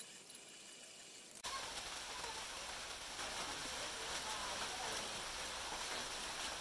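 Steady even hiss that starts abruptly about a second and a half in, after a quieter opening.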